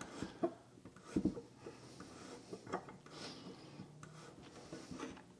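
Hand tap in a T-handle tap wrench being turned to cut threads into a maple block: soft creaking and rubbing of the steel tap in the wood with scattered small clicks, and one louder knock a little over a second in.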